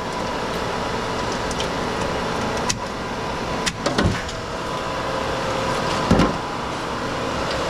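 A steady machine hum runs throughout while pieces of scrap metal clank and knock a few times, the loudest clanks about four and six seconds in.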